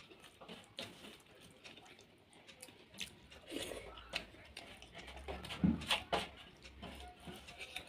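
Close-up eating sounds from a person eating a rice-and-curry meal: soft chewing, lip smacks and small mouth clicks, busier and louder around the middle.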